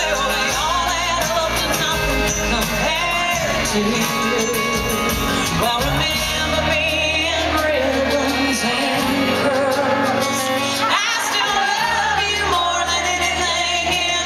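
Live country band playing a song with a sung lead, acoustic guitars, accordion and mandolin over a bass line, with shouts from the crowd.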